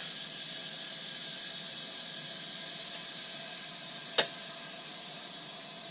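Compressed air hissing steadily through the air-line fitting on a resin pressure pot, easing slightly toward the end. A single sharp click about four seconds in.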